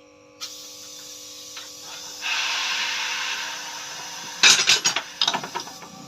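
Hand-tool work on a motorcycle rear shock absorber: a stretch of rasping, hissing noise, then a quick run of sharp knocks about four and a half seconds in.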